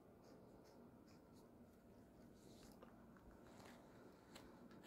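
Faint sounds of a domestic cat licking a fabric catnip toy: soft rasping licks about twice a second, then scattered faint rustles and clicks as it rolls against the toy on the carpet.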